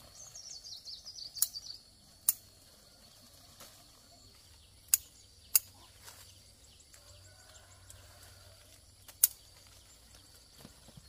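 A bird's rapid chirping, falling in pitch, in the first two seconds, with faint chirps again about seven seconds in. Five sharp clicks, the loudest sounds, come at irregular intervals through the rest, over a steady thin high tone.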